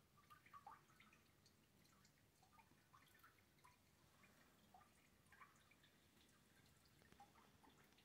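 Faint, irregular dripping of rainwater: scattered small plinks, a few a second.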